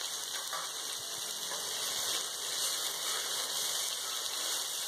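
Sliced green beans, onion and tomato sizzling steadily in hot oil in an aluminium kadai.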